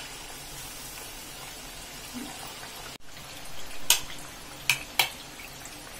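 Mathri deep-frying in hot oil in a kadhai: a steady sizzle and bubbling. Near the end come three sharp clicks as the slotted spoon knocks against the pan.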